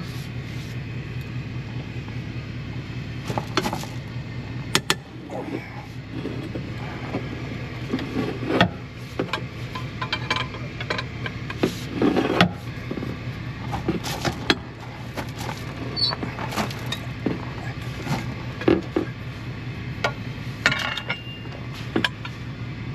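Scattered metal clanks and scrapes of a cut-off, bent wrench and a pry bar levering on the inner bolts of a tractor's rear wheel hub to break them loose, over a steady low hum.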